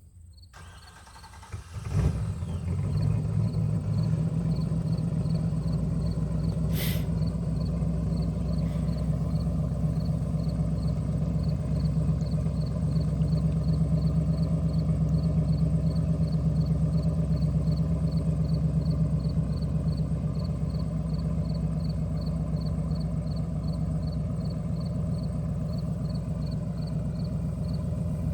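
Lamborghini Aventador's V12 starting about two seconds in with a brief flare, then idling steadily. A faint, regular high-pitched tick, about two a second, sounds throughout.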